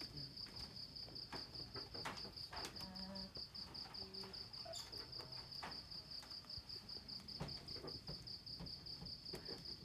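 Crickets chirping at night: a steady, high-pitched, fast pulsing trill, faint, with a few scattered soft clicks.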